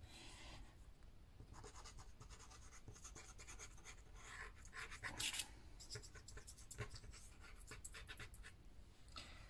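Faint scratching and rustling of paper being handled, with a few light taps.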